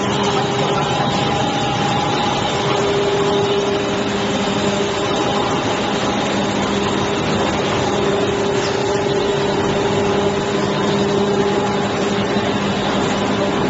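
ABS/HIPS plastic sheet extrusion line running: a loud, steady machine noise with a constant low hum.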